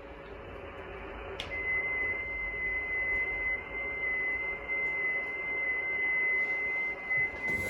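6-metre amateur radio transceiver putting out receiver hiss. About a second and a half in, a click is followed by a steady high tone that holds to the end. A short rustling click comes near the end.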